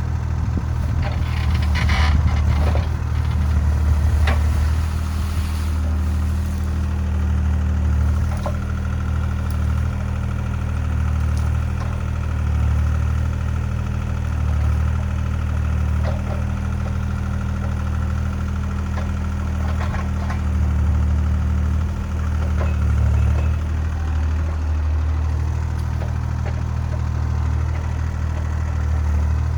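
Diesel engine of a compact earthmoving machine running steadily, swelling and easing a little, with a few sharp cracks and knocks mostly in the first few seconds.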